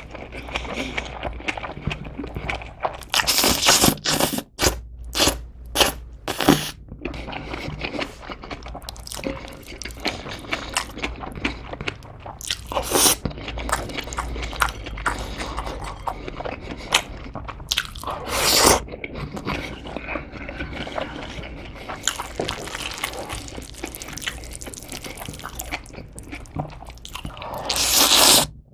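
Close-miked eating of spicy mixed noodles (bibim guksu): several loud slurps, one near the end, with chewing and small wet mouth clicks between them.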